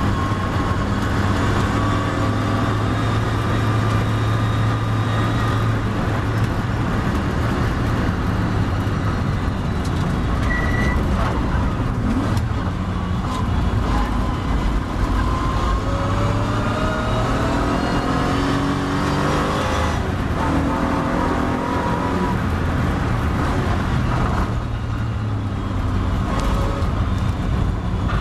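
Triumph TR7 race car's engine heard from inside the car: running hard at full speed, then slowing for a corner and pulling away again, its pitch rising and breaking off at each gear change in the second half.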